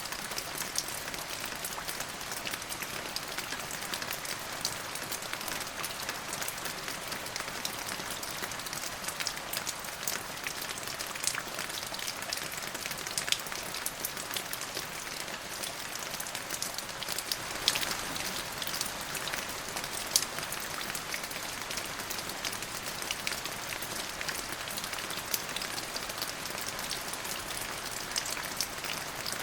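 Steady rain hissing on a surface, with many close individual drops ticking sharply through it.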